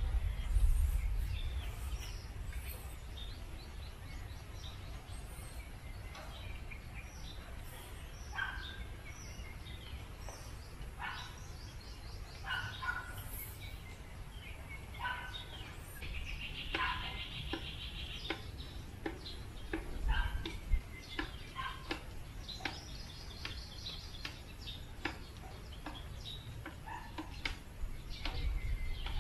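Many wild birds calling: scattered short chirps and a couple of longer trills, over a low steady rumble that is loudest at the start and swells briefly about twenty seconds in.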